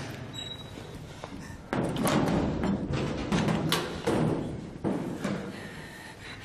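Background film score with heavy percussion strikes, coming in suddenly and loudly about two seconds in.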